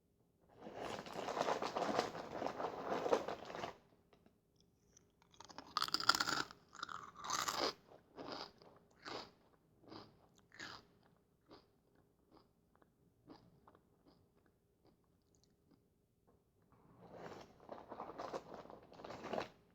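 Close-miked crunching and chewing of Fritos corn chips. A dense crackling stretch in the first few seconds is followed by a run of loud, separate crunches that thin into softer, sparser chewing, and another dense burst of crunching comes near the end.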